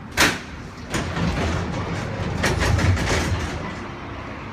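Wuppertal Schwebebahn car (Generation 15) rumbling and clattering on its overhead rail. A sharp bang comes about a quarter second in, and the rumble swells near the middle, then eases.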